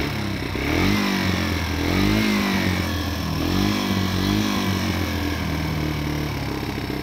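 Yamaha TW125's single-cylinder four-stroke 125cc engine running on choke just after starting, revved with several short throttle blips that make the pitch rise and fall.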